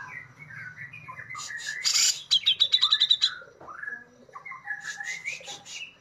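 Grey-cheeked bulbul (Alophoixus bres) singing: a varied run of chirps and whistled notes, with harsh chattering bursts and a rapid trill of repeated high notes about two seconds in.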